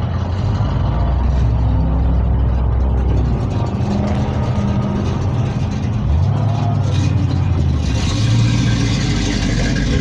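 Car engines idling with a steady low rumble whose pitch shifts a few times. A hissing noise rises on top about eight seconds in.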